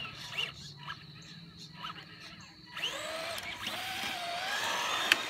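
Electric motor of a radio-controlled car whining, quiet at first and then rising and wavering in pitch from about three seconds in as the car speeds up, with a sharp click near the end.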